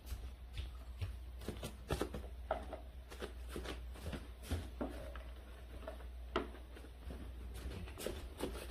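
Scattered light clicks and taps of small plastic toys on a toddler's activity table being handled, irregular and soft.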